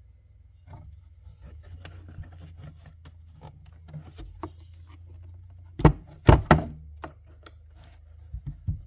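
Plastic socket-set case being handled and opened: small scattered clicks and rattles, then three loud plastic clacks about six seconds in, and a few lighter knocks near the end.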